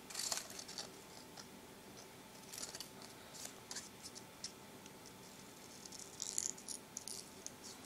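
Small scissors snipping paper in short, faint cuts, coming in a few clusters as they work closely along the traced outline of a paper cut-out.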